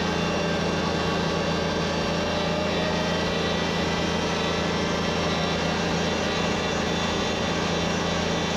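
Wheel loader's diesel engine running steadily at a constant pitch.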